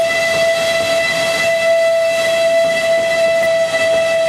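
Mount Washington Cog Railway steam locomotive's whistle blowing one long steady blast over the noise of the moving train.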